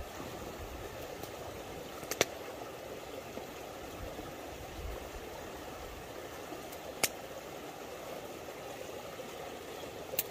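Cleaver blade knocking sharply on a wooden chopping board as it cuts through strips of cured pork belly: a quick double knock about two seconds in, another at about seven seconds and one near the end. Underneath, the steady rush of a river.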